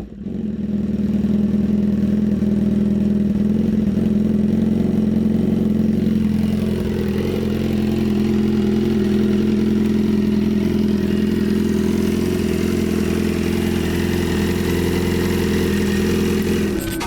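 BMW S 1000 RR HP4's inline-four engine idling steadily while warming up from a cold start, its idle speed dipping slightly about six seconds in and then holding.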